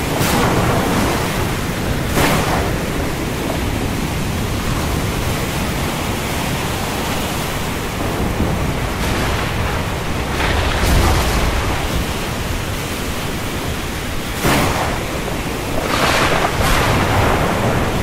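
Thunderstorm: a steady, loud rush of heavy rain and wind, broken by several sharp cracks of thunder, with a stronger one about fourteen seconds in.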